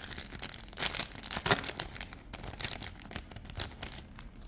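Foil wrapper of a Topps Chrome trading-card pack being torn open and crinkled by hand, a run of sharp crackles and rustles.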